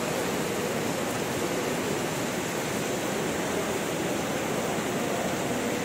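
Swollen, muddy river in flood rushing past as a fast torrent: a steady, unbroken rush of water.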